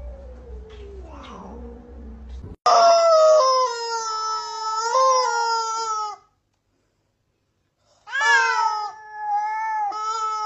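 Cat yowling in two long, drawn-out calls, the first about three and a half seconds long and steady, the second about two and a half seconds with a few wavering breaks, separated by a stretch of dead silence. A fainter falling meow comes before them.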